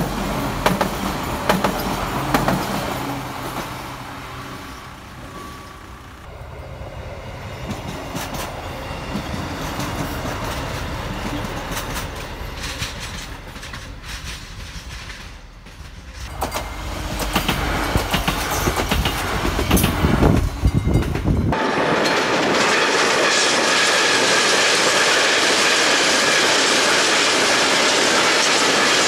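Trains passing, wheels clattering over rail joints. About two-thirds of the way through, the sound cuts abruptly to a steady, louder rush of a train running past.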